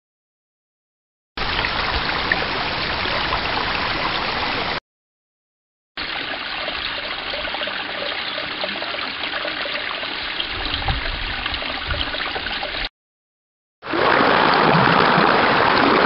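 Flowing stream water, a steady rush and gurgle, heard in three separate takes that start and stop abruptly with dead silence between them: the first about a second and a half in, the next at about six seconds, and a louder one near the end.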